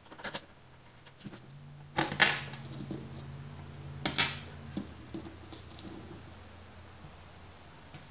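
Small screws and a hand screwdriver clicking and clattering against the plastic bottom case of a Dell Latitude 2120 laptop as its case screws are put back in, with two louder clatters about two and four seconds in.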